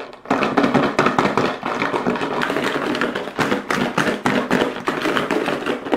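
Sauced chicken wings being shaken and tossed in a plastic tub, a steady rapid clatter of taps and knocks against the plastic.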